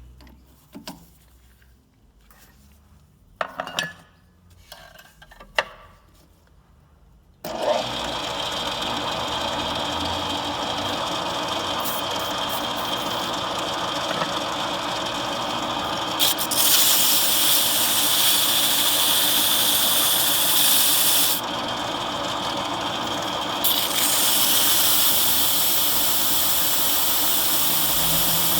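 A few handling clicks and knocks. Then, about seven seconds in, a power tool's motor starts abruptly and runs steadily, with an abrasive hiss that gets louder and softer several times as a metal tool is polished.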